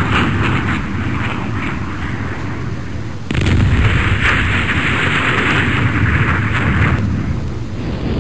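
Wind buffeting the microphone: a loud, continuous rushing rumble with no distinct shots. It jumps louder about three seconds in.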